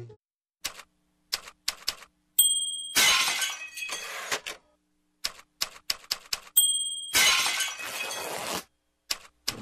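Two crashing, shattering sound effects, each opening with a short high ring and dying away over about a second and a half, with faint scattered clicks around them.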